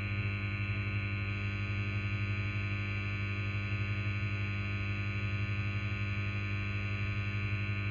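Guitar amplifier noise: a steady low mains hum with its overtones and a hiss on top, the amp switched on with nothing being played.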